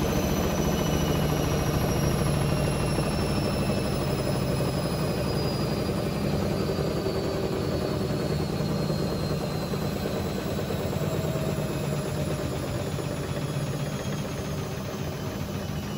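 Hotpoint Ultima Extra WMA64 front-loading washing machine running a wash, its drum turning with water and laundry and its new motor giving a steady low hum. A faint whine slowly falls in pitch as the sound gradually gets quieter.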